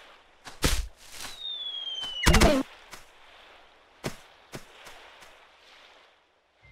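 Cartoon sound effects: a sharp hit, a falling whistle, then a loud bang, followed by a couple of lighter knocks.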